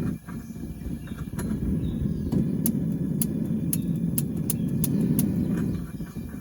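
Gas forge burners running with a steady low rushing noise, with scattered faint sharp ticks; the left burner is not running right. The noise drops off a little near the end.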